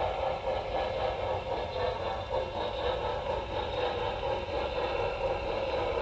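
HO scale model train rolling along the track, its wheels making a steady rolling noise on the rails, picked up by a camera riding on the train.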